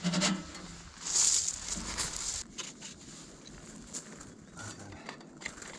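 Sections of a tent wood stove's metal chimney pipe being pushed and slid together. There are a few sharp knocks at first, then a longer scrape about a second in, then light scattered clicks.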